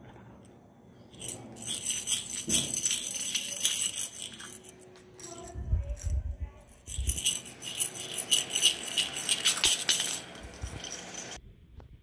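Hollow plastic jingle-ball toys with bells inside jingling and rattling as they are shaken and bitten by parakeets, in two spells of about three seconds each with some low handling thuds between. The jingling cuts off suddenly near the end.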